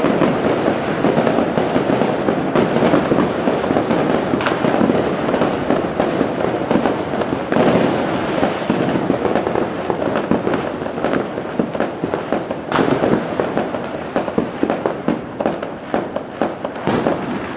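Firecrackers going off in a rapid, continuous crackle of bangs, thinning into more separate pops near the end.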